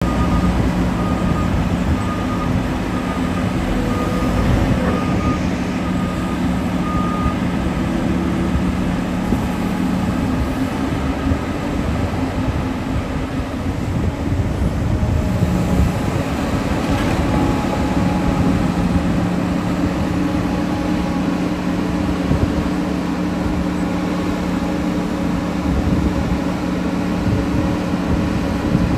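Large diesel mining machinery running steadily under load: a Liebherr 9350 hydraulic excavator working beside a Cat 777E haul truck. For the first seven or eight seconds a backup alarm beeps about once a second over the engine noise.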